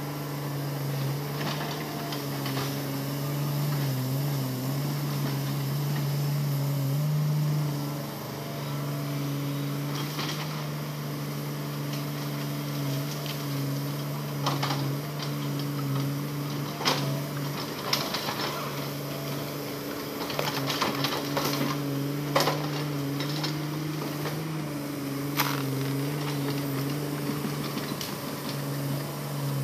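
Hitachi Zaxis excavator's diesel engine running steadily, its note dipping and rising a few times. From about ten seconds in, a scatter of sharp knocks and cracks sounds over it.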